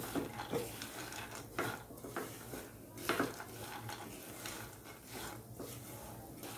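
A spatula stirring and scraping chopped almonds, cashews, walnuts and raisins around a nonstick kadhai as they roast. The strokes are irregular, with a few sharper clicks of the spatula against the pan.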